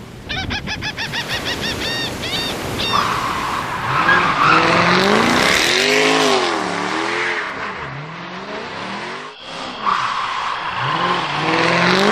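Race car sound effect: an engine revving up and down over and over, with tires squealing. It opens with a quick run of short honk-like calls that slow down over the first three seconds.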